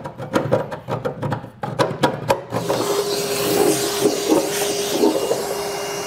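Hand file rasping in quick strokes over the sharp edges of a freshly cut 2-inch hole in a truck bed's sheet metal. About two and a half seconds in, an electric motor starts and runs steadily with a hiss.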